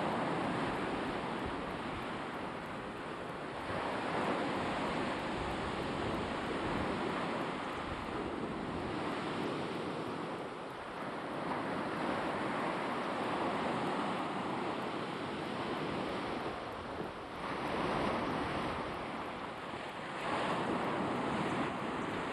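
Black Sea waves washing onto the shore, the surf noise swelling and easing every few seconds, with wind on the microphone.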